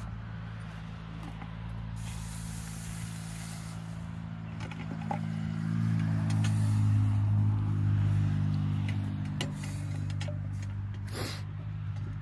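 Hot raku pot plunged into a bucket of water, giving a hissing sizzle for a couple of seconds, about two seconds in. Under it a steady low engine drone runs throughout and grows louder in the middle.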